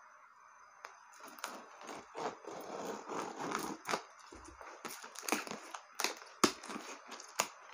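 A multi-tool blade scraping along and slitting the Scotch tape on a cardboard box, followed by several sharp taps and knocks on the cardboard as the box is opened.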